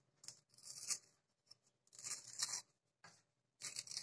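Paper cupcake liner being peeled slowly off a set chocolate cup, tearing and crinkling in three short spells of about half a second each.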